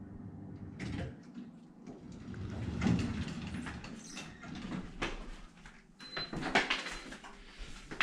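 Guthrie hydraulic elevator's stainless steel landing doors sliding open, after a steady low hum stops about a second in. Footsteps and knocks follow as the camera moves into the cab.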